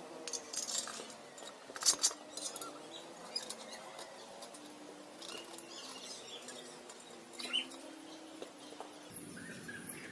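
Light metallic clicks and clinks from a spoked motorcycle wheel being handled and turned on a homemade iron truing stand, with two sharper clicks about two seconds in.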